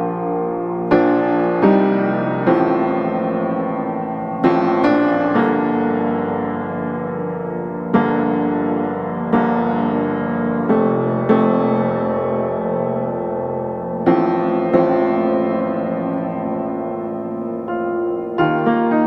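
Background music: slow piano chords, each struck and left to ring, a new chord every one to two seconds, with no vocals.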